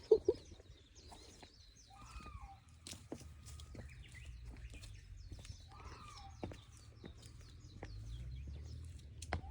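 Reeves's muntjac (kyon) calling: a loud double cry right at the start, then short falling cries about every four seconds, with small birds chirping behind.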